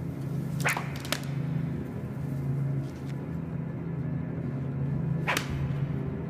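Dramatic documentary underscore: a low, pulsing drone with three sharp swishing cracks laid over it, two in quick succession about a second in and one more about five seconds in.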